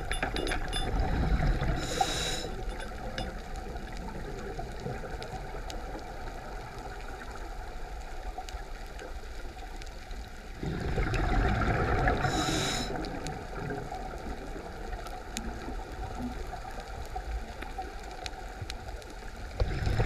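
Scuba breathing heard underwater: a rush of exhaled bubbles from a regulator at the start, again about ten seconds in and near the end, each followed by a short high hiss from the regulator, with faint scattered clicks between breaths.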